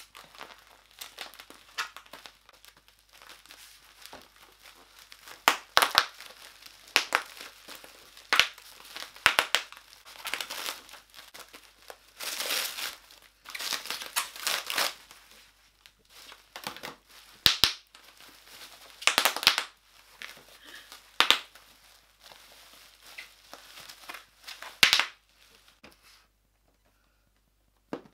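Black plastic mailer bag and clear shrink wrap crinkling and tearing as a parcel is cut open with scissors and pulled apart, in irregular loud bursts of sharp crackles. It falls quiet about two seconds before the end.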